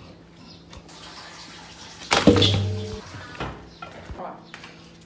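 Pieces of blanched donkey bone dropped into a stainless steel bowl: one sharp clank about two seconds in, with the metal bowl ringing for most of a second after it.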